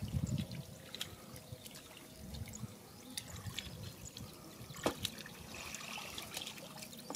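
Faint sloshing and trickling of shallow muddy water as people wade and grope through the mud by hand, with scattered small splashes and one sharper click about five seconds in.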